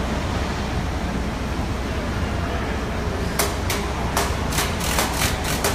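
Steady low rumble of a truck assembly plant's line. In the last two and a half seconds, a quick run of about eight sharp clicks and knocks comes from the work on the engine.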